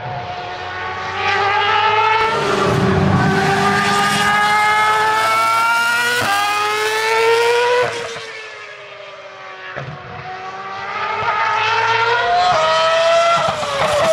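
Former Ferrari Formula 1 car's engine at high revs, its pitch climbing and dropping sharply at each upshift. The sound fades around the middle and then builds again as it climbs through the gears once more.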